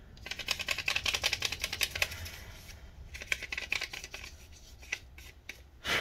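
Rapid scrubbing strokes cleaning dust off a plastic laptop memory cover panel: one run of about two and a half seconds, a second shorter run, then a few scattered clicks.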